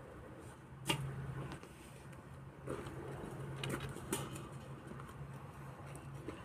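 A long-handled digging tool dropped on the ground with a sharp knock about a second in, followed by a few lighter knocks, over a steady low hum.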